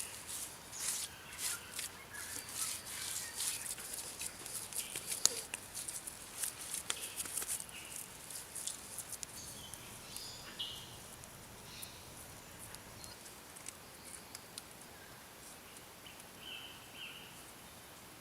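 A fast run of small scrapes and clicks over roughly the first eight seconds, then thinning out, with a few short bird chirps.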